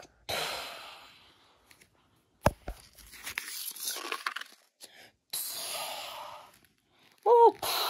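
Paper rustling and crinkling as comic book pages are handled, with two sudden hissing bursts that fade out over about a second each and a sharp click in between; a short vocal sound near the end.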